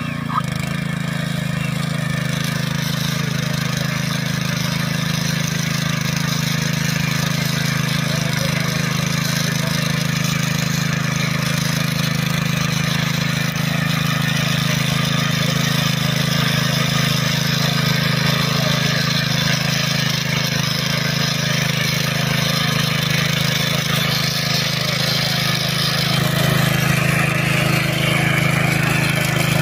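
Honda FQ650 power weeder's engine running steadily under load as its rotary tines churn through the ploughed soil, a little louder towards the end.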